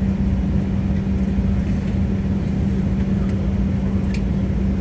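Steady cabin drone inside a Boeing 737-800 taxiing into the gate on its one engine still running at idle: a constant low hum with a steady tone.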